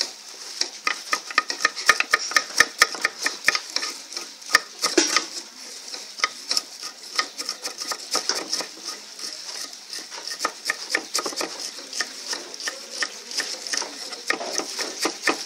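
Knives chopping fresh mustard greens on a wooden board laid over a steel tub: quick, irregular strikes of the blade against the wood, densest in the first few seconds.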